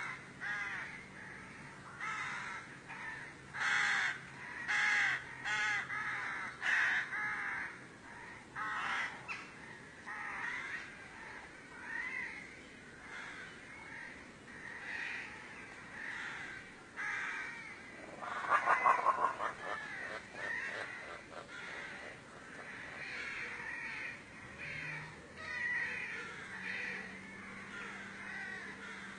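Repeated short, harsh animal calls, often about one a second, with a rapid rattling burst about two-thirds of the way through that is the loudest moment.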